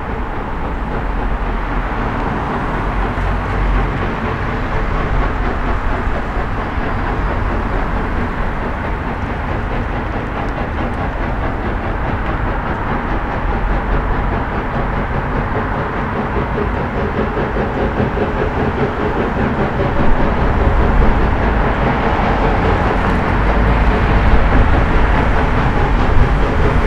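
Steam-hauled narrow-gauge heritage train, led by steam locomotive BLJ 5 THOR, approaching. Its running noise grows steadily louder, with a heavier low rumble in the last several seconds as the locomotive comes into sight.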